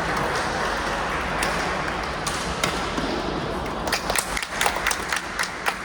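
Basketball dribbled and bounced on a gym court, a run of sharp bounces in the second half, over a steady hum of people talking in a large hall.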